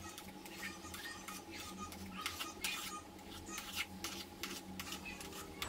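Steel spoon stirring and scraping thick rava kesari (semolina halwa) in a steel kadai, a run of soft irregular clicks and scrapes, with a faint steady hum behind.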